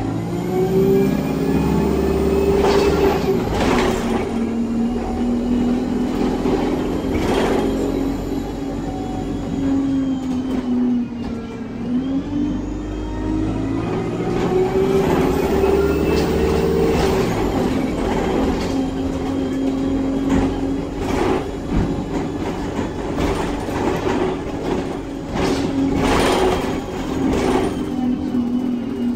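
ADL Enviro 200 bus's diesel engine and Voith automatic gearbox heard from the saloon under way: a high gearbox whine and the engine note climb twice as the bus pulls through its gears, easing off in between, with scattered knocks and rattles from the body.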